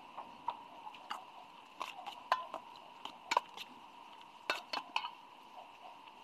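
Metal spoon stirring grated carrot, chopped onion and greens in a stainless steel mixing bowl, clinking and scraping against the bowl in irregular strokes.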